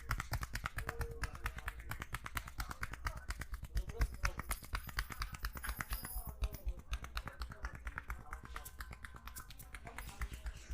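Percussive hand massage: a barber's hands tapping and slapping rapidly on a head and shoulders in a fast, even run of sharp taps.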